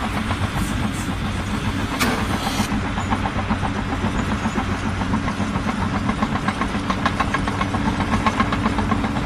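An engine running steadily with a low hum. From about three seconds in, a fast, even clatter of clicks rises over it.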